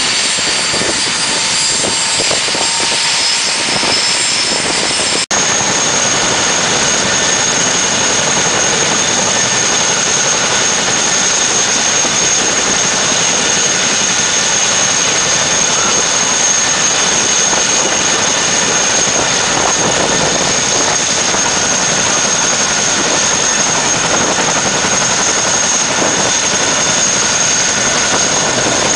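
Turbine engines and rotors of CH-47 Chinook tandem-rotor helicopters running on the ground: a loud, steady, high-pitched turbine whine over a constant rushing noise. About five seconds in the sound breaks off for an instant, and the whine then sits a little higher.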